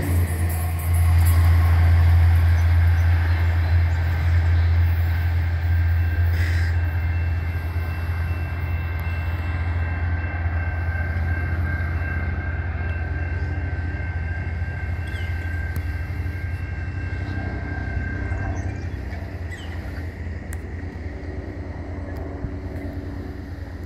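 Rocky Mountaineer passenger train moving away after passing: a low rail rumble that slowly fades, with a thin steady high squeal that stops about 18 seconds in.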